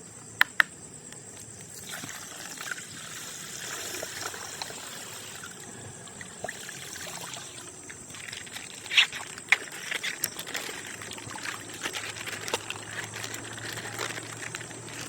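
Coloured water pouring and trickling out of a burst plastic ice bag, with a few sharp clicks just after the start and again about nine to ten seconds in.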